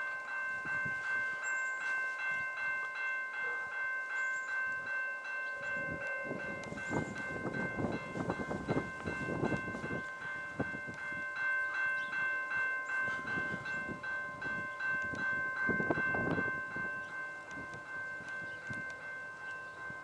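Railway level-crossing warning bell ringing steadily at an even beat of about two to three strokes a second, signalling an approaching train. Irregular low rumbles join in from about six seconds in.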